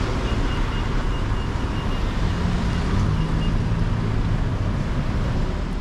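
Road traffic on a busy street: cars and vans running close by, with a vehicle's engine hum swelling about halfway through, and a faint high pulsed beeping in the first half.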